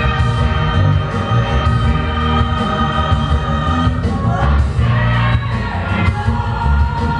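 Loud music with singing over sustained chords.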